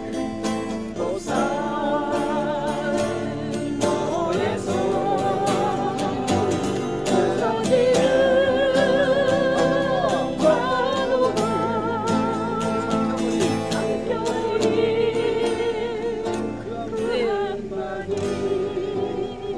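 A solo voice singing a slow ballad to acoustic guitar, holding long notes with vibrato.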